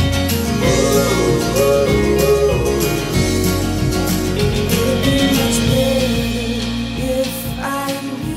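Background pop song: guitar and a steady beat under a wavering sung melody.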